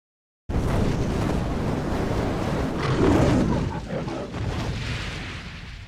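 A loud rushing noise that starts abruptly about half a second in, swells around the middle, and fades away near the end.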